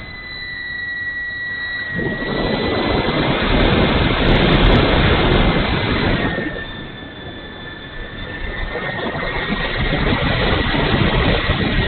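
Onboard sound of a radio-controlled model Hawker Hurricane in flight: the motor and propeller run with a steady high whine over rushing wind. The sound swells, drops back about six seconds in, then swells again.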